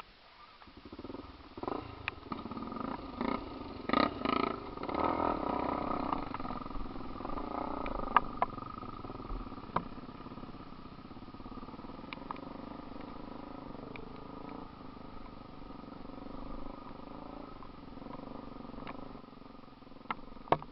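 Off-road vehicle engine being revved in several surges while working over a trail obstacle, then running more steadily under throttle, with occasional sharp knocks.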